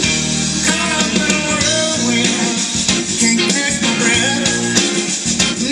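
A song with singing over a steady beat, played through the speaker of an original 1966 Chevrolet C10 dash radio that has been rebuilt to play music from a USB thumb drive or Bluetooth.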